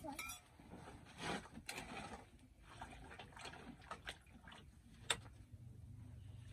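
Faint scattered clicks and light knocks from cooking work at an open wood fire, with one sharper click about five seconds in. A low steady hum comes in near the end.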